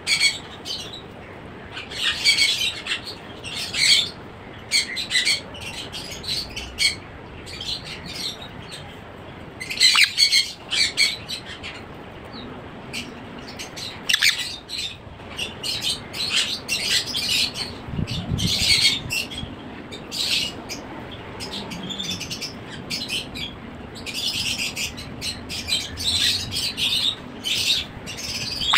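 Sun conure chick calling with repeated short, high squawks that come in clusters every second or two while it is being handled.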